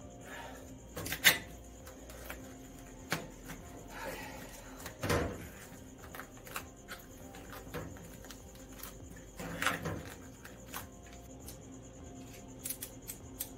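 Scattered knocks, taps and short scrapes of hand work on a car's sheet-metal cowl panel: a steel square being set down and shifted and a knife cutting vinyl wrap. The sharpest knocks come about a second in, around five seconds and near ten seconds. Crickets chirp steadily behind.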